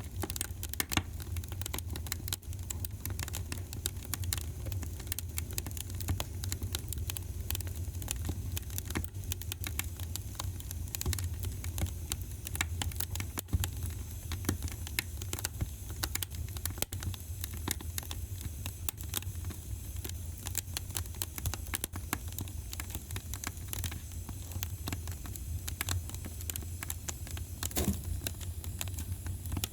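Wood fire crackling in a fireplace: a dense run of small irregular pops and snaps over a low steady rumble, with one louder pop near the end.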